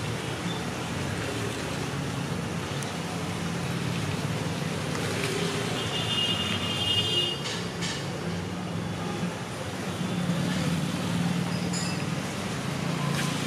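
Busy street background with steady traffic noise, and a short high-pitched beep about six seconds in.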